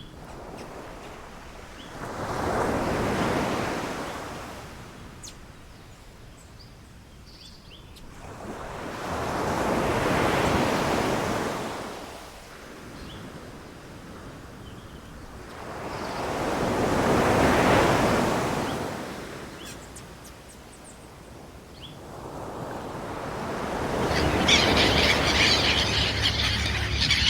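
Ocean waves breaking and washing back in four slow surges, about seven seconds apart, with faint bird chirps between them. Near the end a louder, dense high-pitched sound comes in over the surf.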